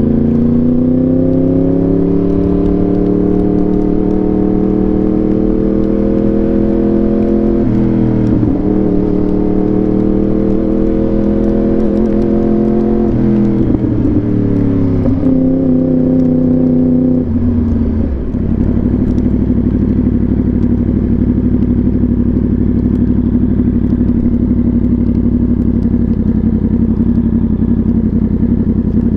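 Yamaha R1 inline-four through an SC-Project exhaust: the revs climb over the first couple of seconds, then hold at a cruise with a few small pitch steps. A little past halfway the engine note drops away and settles into a steady idle for the rest.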